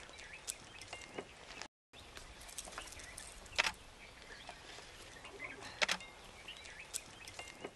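Outdoor ambience: a steady low hiss with scattered sharp clicks and a few brief high chirps, broken by a short dropout about two seconds in.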